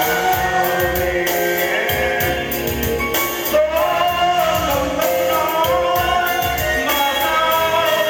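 A man singing a Vietnamese song into a handheld microphone over instrumental backing music with a steady beat.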